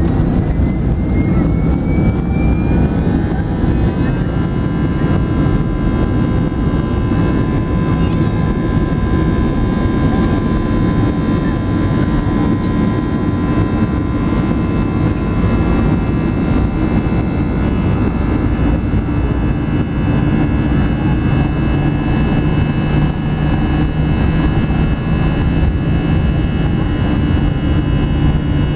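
Airbus A320 turbofan engines heard from inside the cabin over the wing, spooling up with a rising whine over the first few seconds. They then run at a steady high thrust with several high tones over a loud rush of noise, as on the takeoff roll.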